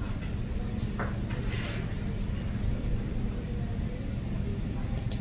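Steady low rumble of room background noise, with a couple of faint clicks about a second in and near the end.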